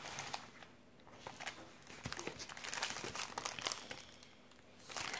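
Paper wrapping and plastic packaging rustling and crinkling as a rolled diamond-painting canvas is unrolled by hand, in irregular handling rustles with a brief pause about four seconds in.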